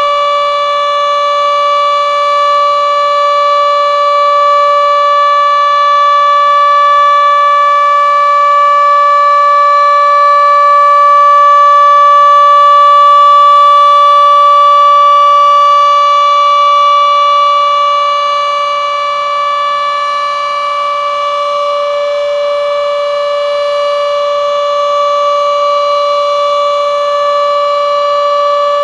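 Denver outdoor warning siren sounding a steady tone at full speed during a test, its pitch holding level with a rich stack of overtones. It grows louder toward the middle and then eases off a little.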